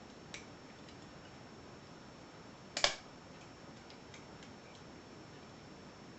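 Small metallic clicks and ticks of a lever pick and tension tool working the levers inside a Union 2234E five-lever mortice lock, with a sharper double click about three seconds in.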